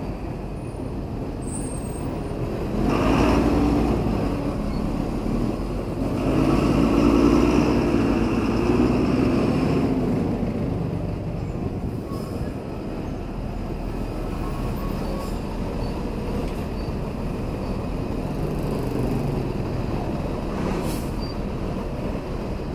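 Road traffic heard from a motorcycle in stop-and-go traffic: a city bus running just ahead, over a steady low rumble of surrounding vehicles. The engine noise swells about three seconds in and again from about six to ten seconds.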